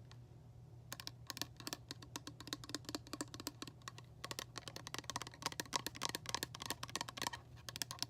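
Fast tapping on a hard object, many quick taps a second, starting about a second in and going on with brief pauses.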